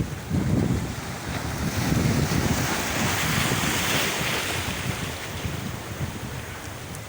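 Sea waves washing ashore, with wind buffeting the microphone. A wash of surf swells up about two seconds in and fades away toward the end.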